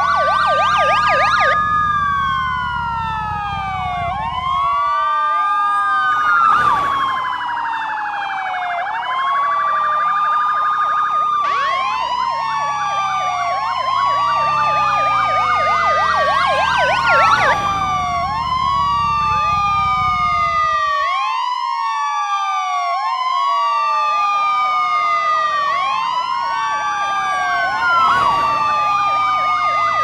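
Police siren wailing in slow rising and falling sweeps, several layers overlapping, with brief quick yelp passages now and then. A low rumble comes and goes underneath.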